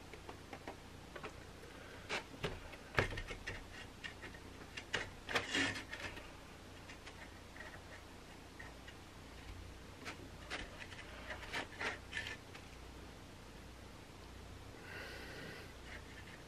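Faint clicks, rubs and rustles of cardboard pizza boxes being held up and shifted in the hands, in two bursts of handling. A short soft vocal sound near the end.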